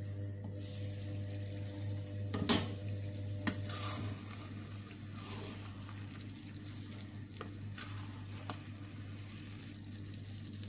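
Wooden spoon stirring rice in a stainless steel pot of simmering broth on low heat, with a steady sizzle from the pot. A few knocks of the spoon and pot, the loudest a sharp clank about two and a half seconds in.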